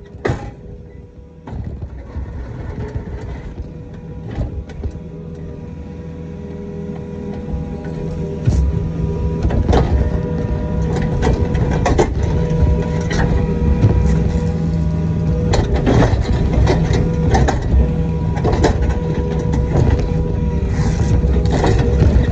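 Kobelco SK55 mini excavator's diesel engine running steadily with its hydraulics, getting louder about eight seconds in. The bucket knocks and scrapes repeatedly as it levels dirt and gravel.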